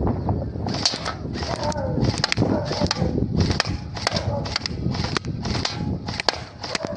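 Bohan AR-15 gel blaster firing about a dozen shots, roughly two a second, each a short sharp hiss with a click.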